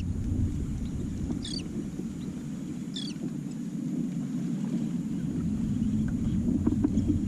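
Steady low rumble of wind and water at a sea kayak, with two short, high chirps falling in pitch, about a second and a half in and again about three seconds in.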